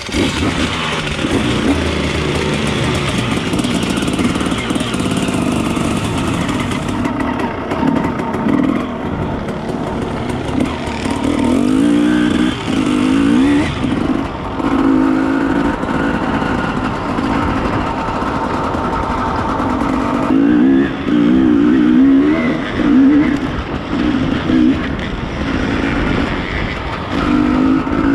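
KTM EXC 300 two-stroke enduro motorcycle ridden hard along a dirt trail, the engine revving up and down repeatedly with throttle and gear changes.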